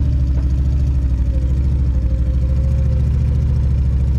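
Off-road vehicle engine running steadily at a constant speed, with a deep, even throb.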